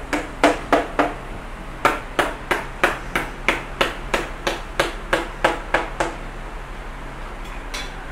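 Radiator header tabs being clinched one by one onto a new plastic top tank with a hand clinching tool: sharp metal clicks about three a second, stopping about six seconds in, with one more near the end.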